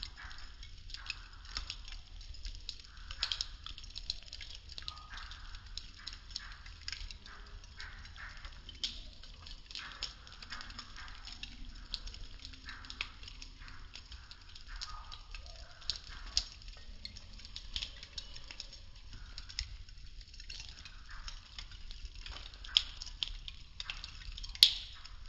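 Burning wooden popsicle sticks crackling, with irregular sharp pops and snaps and one louder pop near the end.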